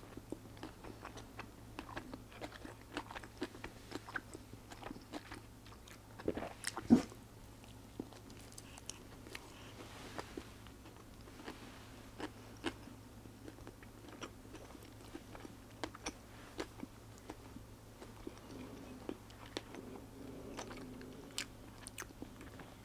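Close-miked chewing and mouth sounds of a person eating a McDonald's Big Mac, with many small wet clicks. There is one louder knock about seven seconds in.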